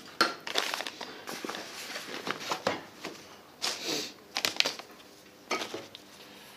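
Hands rustling and shifting items on a cluttered workbench: irregular bursts of crinkling and light knocks as things are moved aside and a half-mask respirator is picked up.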